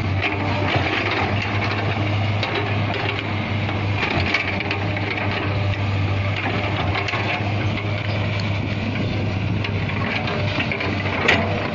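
Kobelco crawler excavator's diesel engine running with a steady low hum while the bucket digs into soil, with scattered knocks from the bucket and linkage and one sharp knock near the end.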